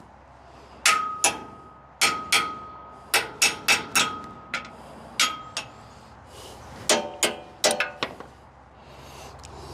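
Hand tools striking metal while working at the rusted engine cover bolts of a John Deere LA105 riding mower: about a dozen sharp taps and clinks, several leaving a brief metallic ring. A quick cluster of clanks with a lower, fuller ring comes near the end.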